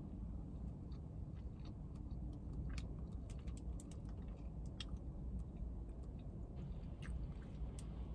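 A person chewing a mouthful of toasted panini, with scattered soft clicks and crunches of the chewing over a steady low rumble.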